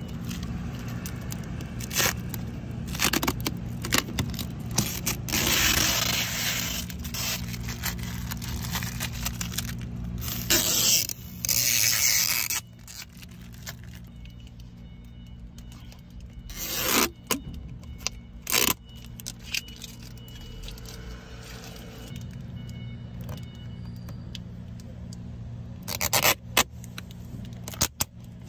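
Protective plastic film being peeled off a new car's interior trim and screen bezel: crackling, tearing rips in several long pulls and short bursts, with a steady low hum underneath.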